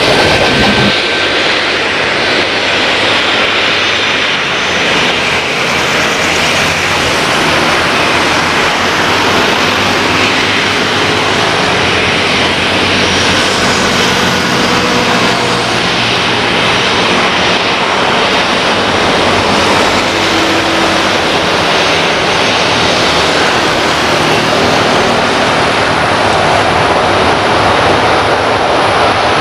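Boeing 737-300 jetliner's CFM56 turbofan engines running steadily at low taxi power as the airliner rolls slowly onto the runway: a continuous, even jet noise with no spool-up.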